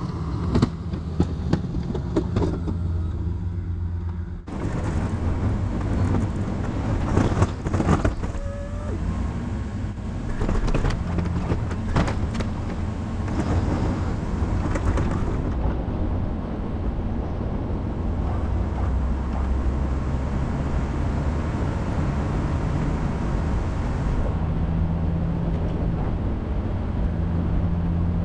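GMC Sierra 2500 pickup's engine running steadily while pushing snow with a Snow Dogg HD80ii plow, with scattered knocks and clanks in the first half.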